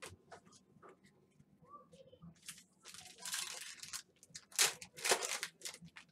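Trading-card pack wrapper being torn open and crinkled by hand in two loud rips, the second about a second and a half after the first, after a few small clicks of cards being handled.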